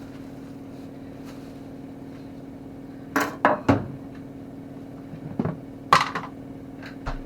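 Kitchen utensils and items knocked and set down on a worktop: a quick run of three clattering knocks about three seconds in, then a few more, the sharpest about six seconds in. A steady low hum runs underneath.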